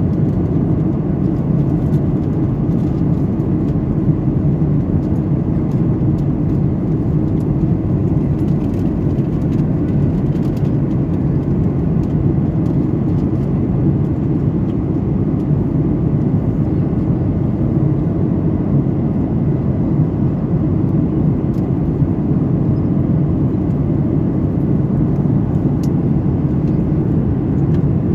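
Steady cabin noise of a Boeing 737-900ER in flight, heard from inside the cabin: an even, low-pitched drone from its CFM56-7B turbofan engines and the airflow over the fuselage.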